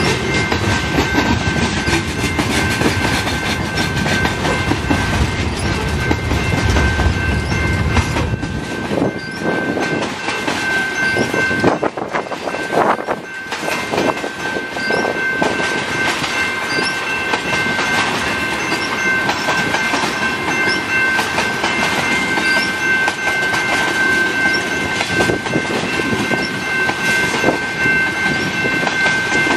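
Freight train of tank cars rolling past a level crossing: a steady rumble with the clickety-clack of wheels over rail joints. The heavy low rumble eases about eight seconds in. A steady high ringing from the crossing's warning bell sits over it.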